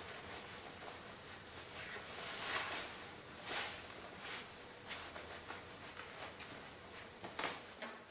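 Clothing rustling as a waistcoat is pulled on over a shirt and fastened: soft, irregular swishes of fabric, a handful of them a second or so apart.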